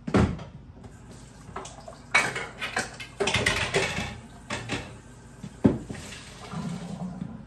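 Cooked macaroni being drained and rinsed under a running kitchen tap: spells of water splashing, with knocks and clanks of the pot at the sink, the sharpest one about two-thirds of the way through.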